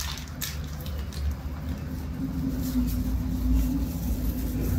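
Plastic bag crinkling as rice cakes are handled, over a low steady rumble with a hum that swells in the middle.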